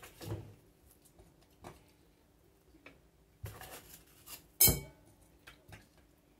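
Scattered small taps and knocks of biscuits being dipped in a glass bowl of milk and laid in a glass baking dish. One sharp clink about four and a half seconds in is the loudest.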